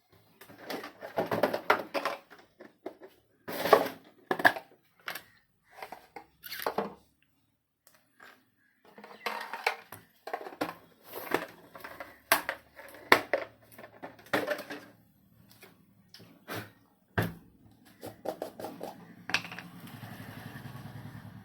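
Irregular scraping and rubbing strokes on the parts of an opened LED bulb as it is cleaned flat, with small knocks of tools on the work surface. A low steady hum starts near the end.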